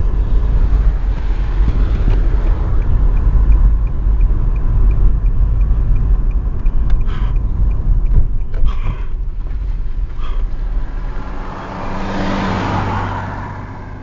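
Road and engine rumble heard from inside a car as it slows and pulls onto the roadside, with a faint regular ticking for a few seconds and a few knocks from the tyres and body. The rumble eases, and near the end another vehicle passes close by in a rush of noise that swells and fades.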